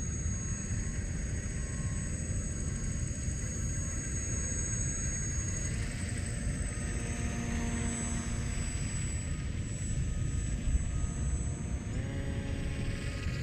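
Motors of a radio-controlled Magnus-effect twin rotorcraft in flight, a high thin whine that shifts pitch now and then, with a set of lower tones rising about twelve seconds in as the motors speed up. Under it a steady low rumble.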